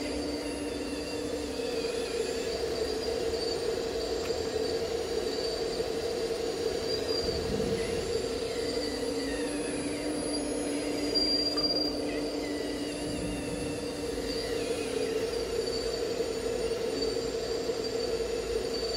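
RC model Liebherr 954 excavator running, its electric motors giving a steady whine, with a higher whine that rises and falls in pitch now and then.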